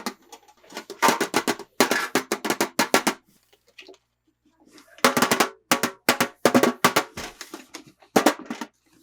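Toy packaging being handled and opened: bursts of rapid crackling and rustling, likely plastic wrap and cardboard, coming in three clusters with short pauses between.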